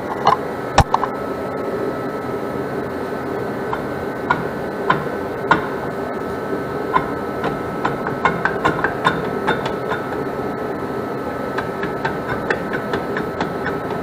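A rusted rear brake drum on a 1974 Chevy Camaro being wiggled and pulled by hand to free it, giving scattered metallic clicks and knocks that come thicker in the second half, over a steady hum. The drum is stuck, which is why the car is so hard to roll.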